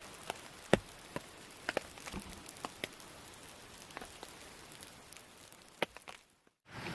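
Rain falling, with scattered single drops ticking loudly and irregularly over a faint hiss; it fades out near the end.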